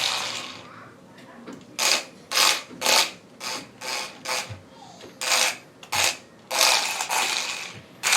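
Tiny 1:64 radio-control car's electric drive motor and gears whirring in short, irregular bursts as the throttle is tapped and the car spins, with one longer burst of about a second near the end.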